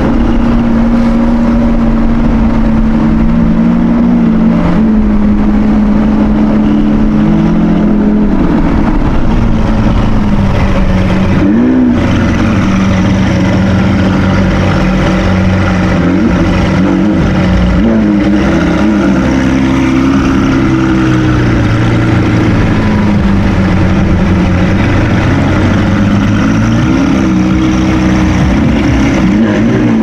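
Supercar engine running loud and continuous, its pitch holding steady, stepping down a few times and rising briefly in short rev blips several times.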